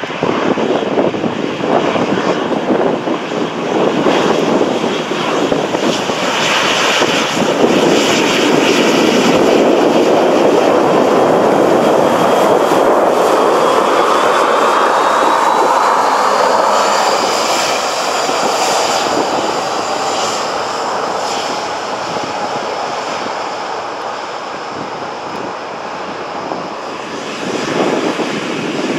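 Boeing 737-800 jet engines (CFM56-7B turbofans) running at taxi power as the airliner rolls past: a steady jet roar that builds, with a high whine rising in pitch about halfway through, then fades. Near the end a second jet, an Embraer 190, grows louder as it approaches.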